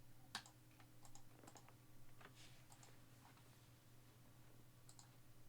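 Faint, scattered typing clicks on a computer keyboard, a handful of separate taps over a low steady hum.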